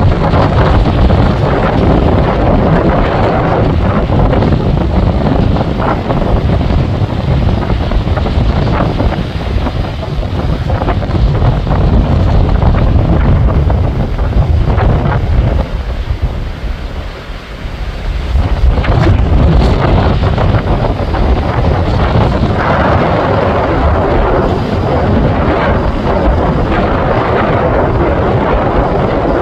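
Tropical-storm gusts buffeting the microphone in a loud, low, continuous rumble, with waves surging underneath. The wind drops briefly a little past halfway, then picks up again.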